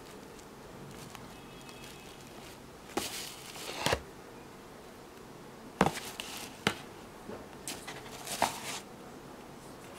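Paper rustling as hands handle a paper gift box and its shredded paper filler to lift out lipstick tubes. There are a few sharp taps, the loudest about six seconds in, as a tube is knocked or set down.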